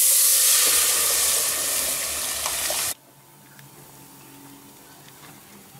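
Loud sizzle as boiled dal hits hot tempering oil (tadka) with mustard seeds and curry leaves, poured from a pressure cooker. It stops abruptly about three seconds in, leaving only a faint background.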